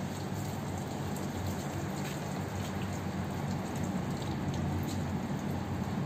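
Garden hose spraying water onto a car's body and windows: a steady spatter of water on the panels, over a low steady hum.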